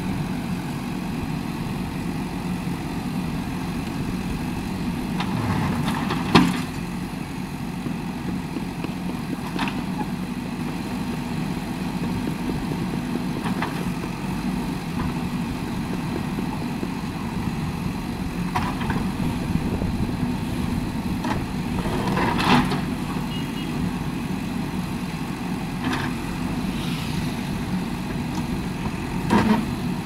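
JCB 3DX backhoe loader's diesel engine running steadily while the backhoe arm works, with sharp knocks every few seconds, the loudest about six seconds in.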